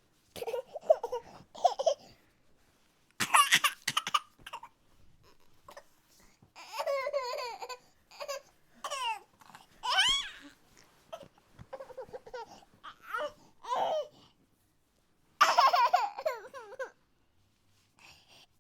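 A baby whining and fussing: a string of short, whimpering vocal sounds with rising and falling pitch, broken by brief pauses.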